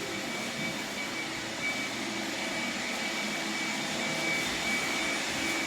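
Steady whir of a running motor with a thin, high whine held at one pitch.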